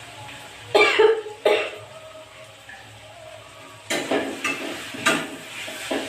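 A woman's harsh coughing fits, a pair of coughs about a second in and another cluster from about four seconds in, set off by the burning chilli fumes of masala being fried. The frying masala sizzles faintly underneath.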